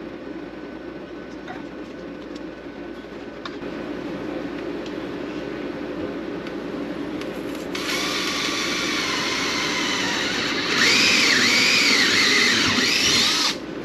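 Cordless drill starting about eight seconds in, then running louder under load for about three seconds with its pitch wavering, boring a pilot hole, before it stops suddenly near the end. A steady low hum lies underneath.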